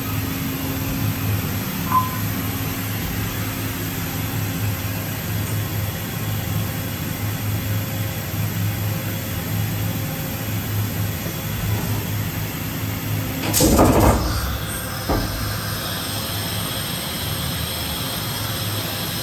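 Makino A71 horizontal machining center running with a steady hum. About two-thirds through comes a loud rushing burst and a knock a second later, then a high whine as its pallet changer swings the pallets round.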